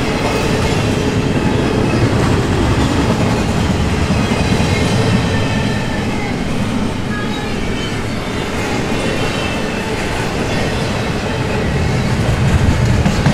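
Double-stack intermodal container cars rolling past: a loud, steady rumble and rattle of steel wheels on the rails, growing a little louder near the end.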